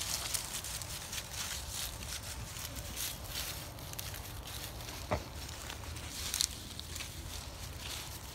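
Irregular rustling and crunching of dry fallen leaves and grass underfoot, with a sharp click about five seconds in.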